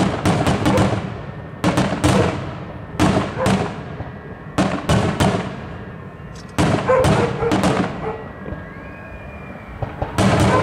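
Aerial firework shells bursting in a large display: sharp bangs coming in quick clusters, each trailing off in echo, with a brief lull just past the middle.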